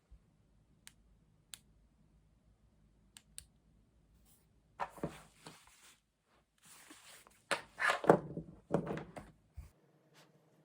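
A few light clicks, then rustling and handling noises with soft knocks, loudest a little past the middle.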